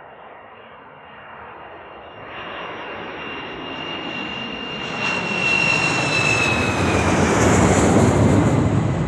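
Aeroplane flying overhead: the engine roar grows steadily louder as it approaches, with a high whine that drops in pitch as it passes. It is loudest near the end and then begins to fade.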